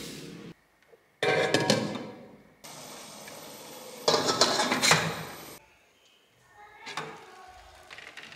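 Stainless steel steamer pan clattering and scraping against metal as it is handled and set down onto the steamer pot, in two loud bursts with lighter knocks afterwards.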